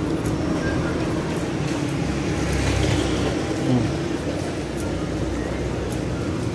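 Street traffic noise: a steady rumble of passing vehicles that swells around the middle, with a brief louder sound about three and a half seconds in.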